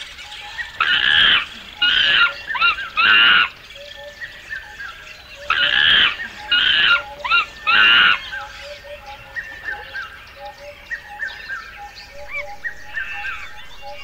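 Forest animal calls: a loud series of four harsh, pitched calls, repeated about four seconds later in the same pattern, over smaller birds chirping steadily in the background.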